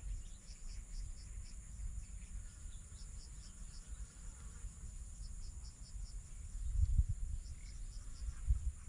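Insects droning steadily at a high pitch, with short chirps repeating in quick runs, over a low rumble that swells about seven seconds in.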